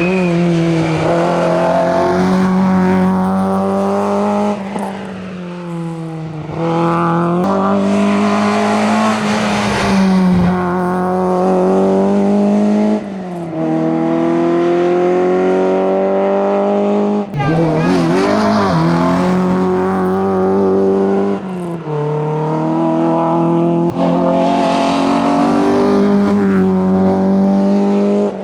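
Citroën Saxo 16V competition car's four-cylinder engine running hard up a hillclimb course. Its note rises repeatedly under acceleration and drops back at gear changes, with several short dips where the driver lifts.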